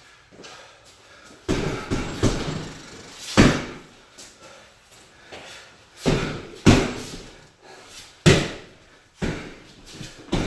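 Gloved punches landing on a Title wall-mounted heavy bag: about eight sharp thuds in short combinations, some in quick pairs, with pauses of a second or two between them.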